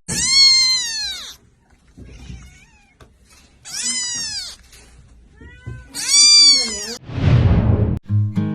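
A cat meowing three times, each a high, drawn-out call of about a second that falls in pitch at the end. A short rush of noise follows the last meow.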